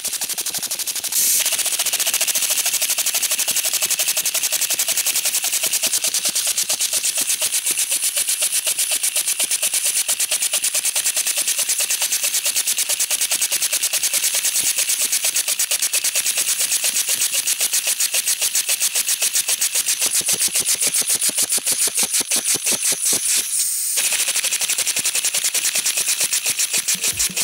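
3D-printed pneumatic rotary engine (a liquid-piston-style design) running on compressed air: a fast, even train of hissing air-exhaust pulses. The pulses spread out somewhat over the last few seconds as it slows.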